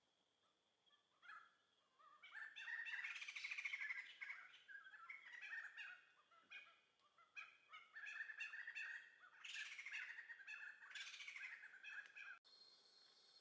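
A songbird singing in several phrases of quick chirps and rapid trills, cutting off suddenly near the end.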